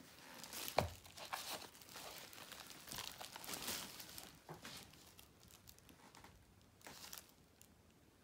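Faint crinkling and rustling from things being handled, with a short sharp click a little under a second in.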